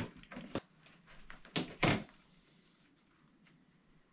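A few short, sharp clicks and knocks from small objects being handled, the loudest about two seconds in, then quiet room tone.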